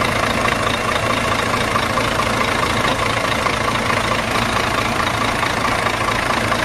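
Engine idling with a steady low rumble and faint hum, unchanging throughout.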